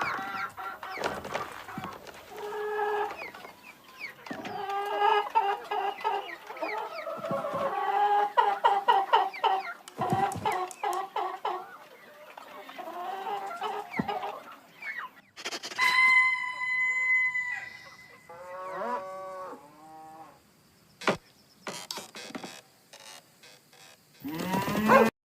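Chickens clucking in quick pulsed calls, with rooster-like crowing. About sixteen seconds in comes a steady held tone, then a few short pitched calls, a sharp click, and a quick rising sweep at the end.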